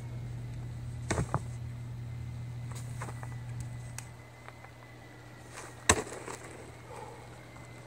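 A heavy field stone is dropped after a lift and lands with one sharp, loud knock about six seconds in. A couple of lighter knocks come about a second in, over a steady low hum.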